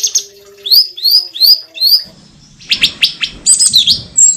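Cucak cungkok songbird singing loudly: a run of quick rising whistled notes, then from about halfway a busier, varied burst of chattering notes. A faint low steady tone sits under the first half.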